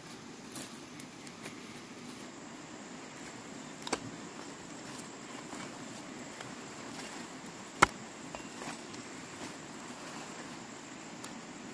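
Footsteps and rustling through dry stalks and leaves, with a few small clicks early on and two sharp snaps, one about four seconds in and a louder one near eight seconds. Faint insects in the background.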